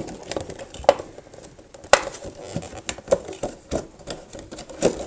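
Irregular sharp plastic clicks and taps from handling an Anker wireless vertical mouse, fiddling at the slot that holds its receiver.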